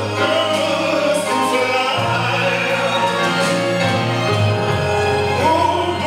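Slow, mellow song: a singer holding long, wavering notes over low sustained accompaniment notes that change every couple of seconds.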